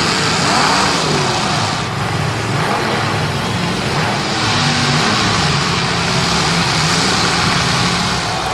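Several race car engines running hard at once, their pitch rising and falling as they rev up and down, over a steady rushing noise.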